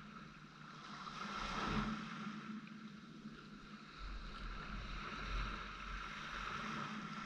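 Small waves washing onto a sand and shell beach, with wind gusting on the microphone; the wash swells up about a second and a half in.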